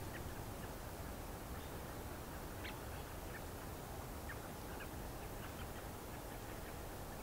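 Quiet evening outdoor ambience: a steady low hiss, with faint, short high chirps scattered every second or so.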